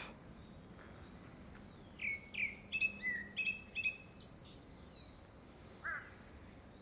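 Grey-backed thrush singing one phrase of quick, clear whistled notes, some sliding up or down, which the uploader takes for courtship song ahead of a second brood. A short, harsher call from another bird comes near the end.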